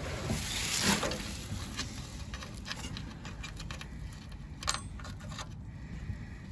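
Old car floor carpet being pulled out and handled: a rustling scrape in about the first second, then scattered light rustles and clicks, with one sharper click a little before five seconds.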